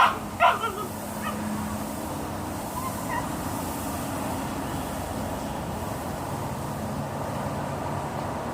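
A Boxer dog gives two short, sharp yelps half a second apart at the start while playing alone; after that only a steady background hum remains.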